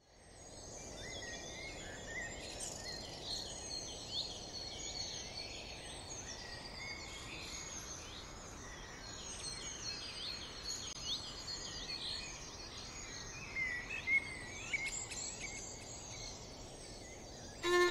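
Outdoor ambience of many birds chirping and calling over a steady low background hiss, fading in over the first second. Violin music comes in at the very end.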